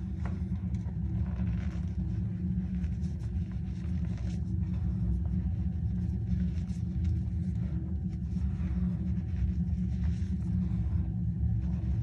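Hands squeezing and crumbling powdery reformed cornstarch gym chalk: soft, continuous squeaky crunching and crumbling, over a steady low rumble.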